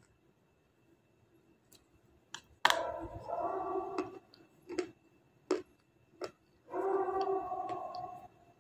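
A woman bites a hard white chalky lump with one sharp crunch about three seconds in. A few short crunching clicks follow as she chews. Twice she hums a held, closed-mouth "mmm", each about a second and a half long.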